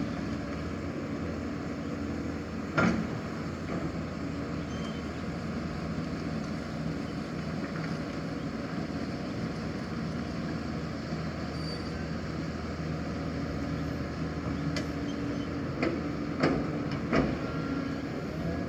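Hydraulic excavator's diesel engine running steadily, with a few sharp metallic clanks, one about three seconds in and several close together near the end.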